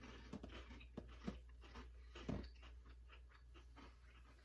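Faint chewing with small, irregular crunches: people biting into and eating cream-filled koala chocolate biscuits.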